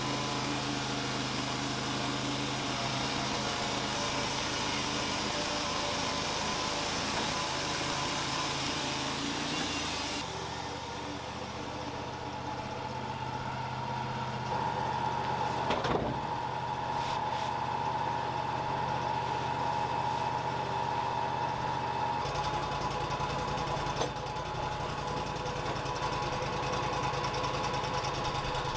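Wood-Mizer LT35 band sawmill running, its engine droning steadily. The sound shifts abruptly twice.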